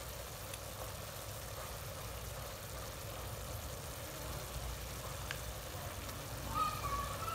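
Steady low roar of a portable gas stove burner under a steaming pot of frog stew, with a faint simmer. There is a light clink about five seconds in and a short scrape near the end.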